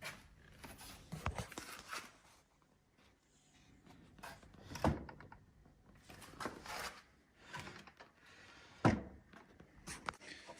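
Wooden boards being handled and set down: scattered knocks and clatter, with two louder thuds about five and nine seconds in.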